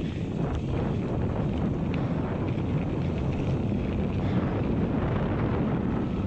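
Wind buffeting the microphone of a camera on a mountain bike descending a dirt forest trail, over the steady rumble of the bike rolling over the ground, with a few light knocks from the bike.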